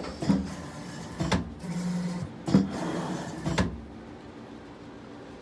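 Automatic screen-printing press cycling while laying down a double layer of pink ink: a run of sharp mechanical clunks at uneven intervals, with a motor running briefly between them. After about three and a half seconds it settles to a quieter steady machine hum.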